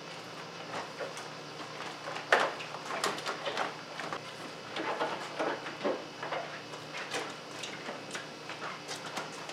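A damp chamois being wiped over a truck's wet paint and chrome, making irregular rubbing and squeaking strokes.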